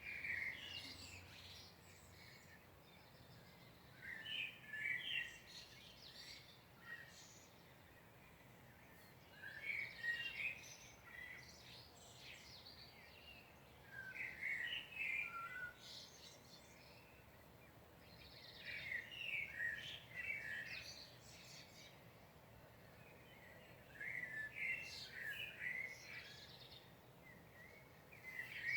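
A songbird singing short phrases of about two seconds, one every four to five seconds, over a faint steady hiss.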